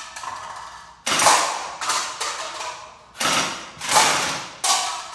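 Toy gel blaster firing: five sharp shots, about one a second, each fading out over half a second.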